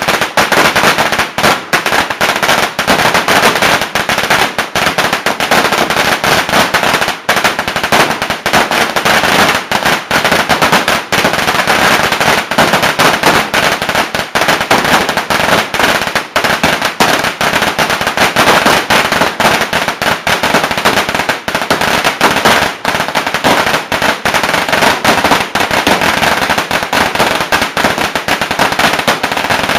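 A long string of firecrackers going off in a rapid, unbroken crackle of loud bangs.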